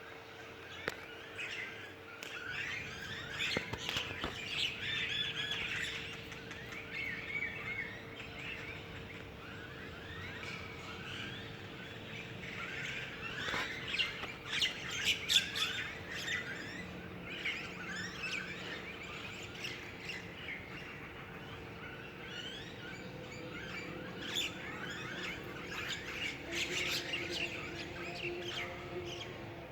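Several small birds chirping and twittering in a tree: many short, overlapping high calls throughout, busiest about 4 seconds in, around 14 to 16 seconds, and again near 25 to 27 seconds.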